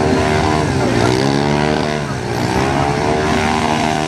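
Quad ATV engine revving hard as it spins tight doughnuts in mud, its pitch dipping and climbing back twice as the rider works the throttle.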